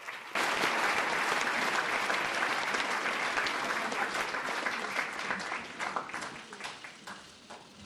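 Large indoor audience applauding, suddenly loud just after the start, then dying down to scattered claps near the end.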